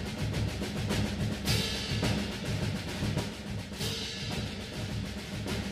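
A school band's drums play a slow, steady processional beat with rolls, and a bright crash comes about every two and a half seconds.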